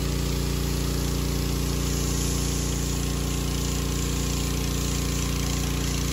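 Pressure washer running steadily: an engine's even hum under the hiss of the water jet spraying the bus's side panels to strip off the reflective lettering.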